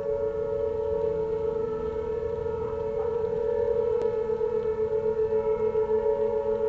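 Several distant outdoor tornado warning sirens (Sentry, Federal Signal, Fedelcode and Whelen Vortex models) sounding together in a steady Alert tone. Their held pitches overlap into a wavering chord, with a light pulsing in loudness in the second half.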